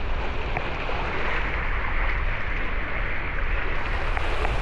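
Water rushing along a waterslide with wind buffeting the rider's camera microphone, a steady loud rush with a heavy low rumble.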